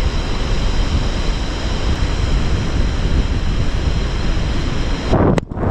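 Gulf surf washing onto the beach with wind buffeting the microphone: a steady rushing roar with heavy low rumble. Near the end there is a short louder burst, then the sound briefly drops out.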